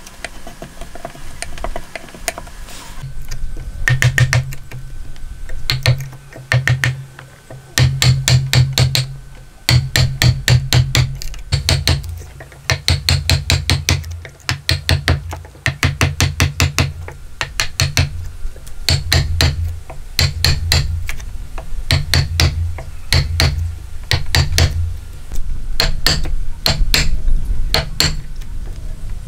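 Wooden mallet striking a wood chisel, chopping out a joint recess in a timber beam: quick runs of sharp knocks, about five a second, with short pauses between runs, starting about four seconds in.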